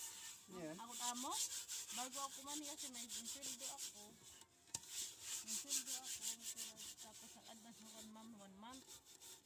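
A hand scrubbing the soot-blackened inside of a metal cooking pot with gritty powder, rapid rasping strokes that pause briefly about four and a half seconds in. The scouring is removing the black soot from the pot.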